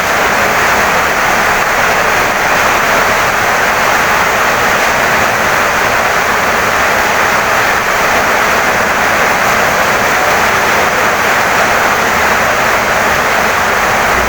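Heavy rain pouring down steadily on a wooden house, an even, unbroken hiss with no thunder or single drips standing out.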